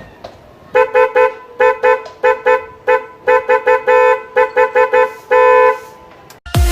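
Dual electric snail horns on a scooter sounded in a rapid rhythmic pattern of many short honks, closing with one longer blast. Loud electronic music cuts in right at the end.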